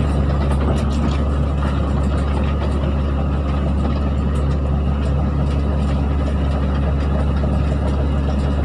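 Excavator's diesel engine running steadily while land clearing, a constant low drone.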